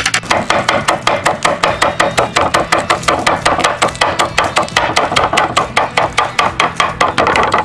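Kitchen knife rapidly chopping green onions on a wooden cutting board: fast, even knocks of the blade on the board, about five a second.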